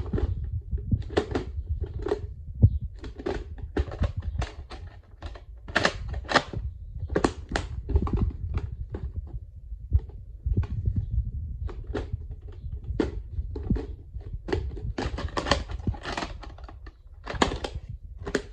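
Plastic VHS tape cases handled close to the microphone: irregular clicks and knocks, clustered several a second, over a low rumble of handling noise.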